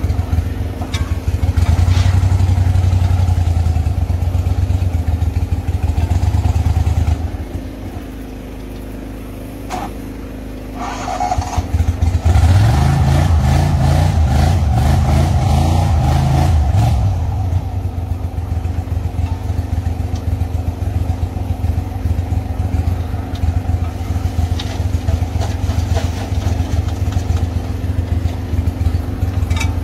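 Small boat motor running steadily, easing down to a low idle for a few seconds about a quarter of the way in, then revving up and settling back to a steady run, with a few short knocks.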